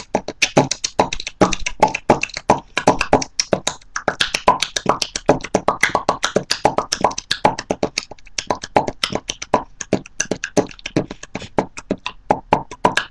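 A person beatboxing: a fast, unbroken run of mouth clicks, pops and hisses, several strokes a second.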